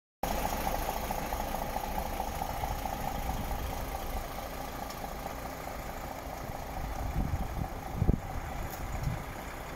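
DAF XF 480 tractor unit's PACCAR MX-13 inline-six diesel idling steadily, with a few low thumps near the end.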